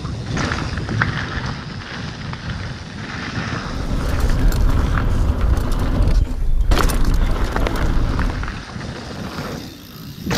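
Mountain bike riding fast down a dirt trail: tyres rolling over dirt with the bike rattling over bumps and wind buffeting the microphone, a heavy rumble that is loudest in the middle stretch.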